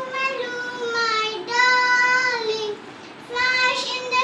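A child singing a rhyme, with several held notes and a short pause a little past the middle.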